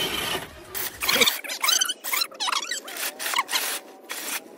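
Electric motor and geartrain of a 1/10-scale RC crawler whining in short, rising bursts of throttle while it struggles up a sandy climb, tyres scrabbling.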